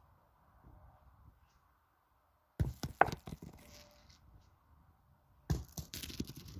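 Steel pétanque boules striking: two sudden sharp impacts, one a little under three seconds in and another near the end, each followed by a short clatter.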